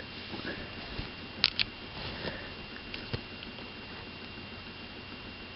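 Light clicks and taps from handling a 3.5-inch floppy drive during disassembly: two sharp clicks close together about one and a half seconds in, another about three seconds in, and fainter taps, over a steady hiss.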